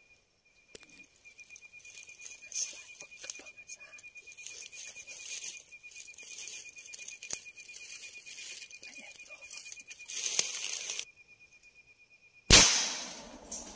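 Leaves and brush rustling for about ten seconds over a steady, fast-pulsing insect trill, then a single sharp, loud bang about a second and a half before the end.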